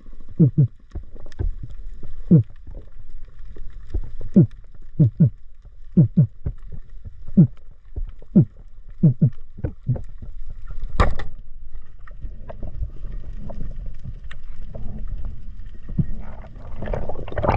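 Underwater sound of a freediver finning over a reef: short pulses that fall in pitch, about one a second and often in pairs. There is a single sharp knock about eleven seconds in, and a rush of water near the end.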